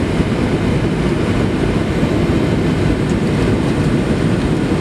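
Steady cabin noise inside a Boeing 737-700 on approach with flaps extended: the CFM56-7B engines and the airflow over the wing make a constant deep rush, even throughout.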